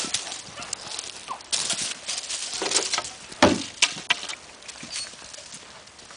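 Hurried footsteps crunching and rustling through dry leaf litter on a woodland floor, irregular and busiest in the first few seconds, with one louder knock about three and a half seconds in.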